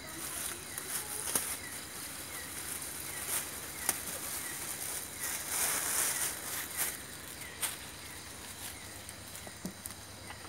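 A thin plastic bag rustling and crinkling, with sharp crackles, as a bottle of cooking oil is pulled out of it; the crinkling is loudest about two-thirds of the way through. Crickets and other night insects trill steadily behind it.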